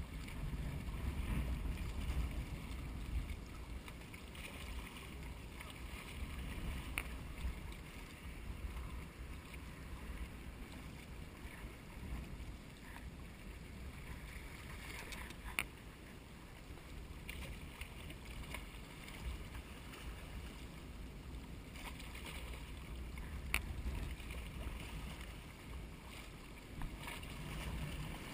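Wind buffeting a GoPro's microphone, a steady low rumble, with two sharp clicks, one about halfway through and one later on.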